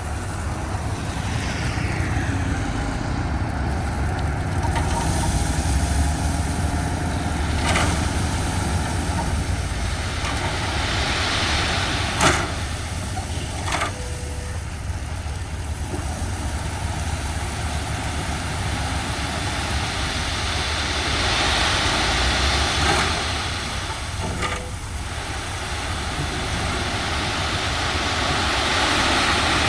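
Heavy diesel earthmoving machinery running steadily while gravel is pushed and spread, with a few sharp metallic clanks scattered through.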